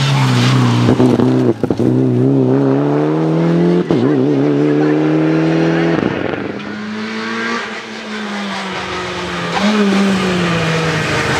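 Rally car engines at hard throttle in a string of short clips, each rising in pitch as it pulls through the gears. The middle stretch is quieter and more distant, and it gets loud again near the end.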